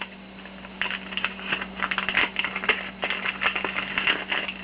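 Hands handling a single-shot espresso pod, making rapid, irregular small clicks and crinkles that start about a second in, over a steady low hum.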